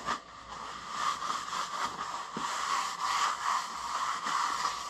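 Paper towel rubbed over the oily cast-iron table of a South Bend milling machine, a rustling hiss that swells and fades with each wiping stroke, as the oil is wiped off.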